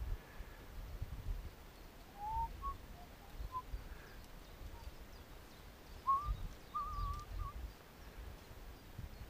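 Birds calling: scattered short whistled chirps, then a brief warbling phrase about six seconds in, over intermittent low rumbles.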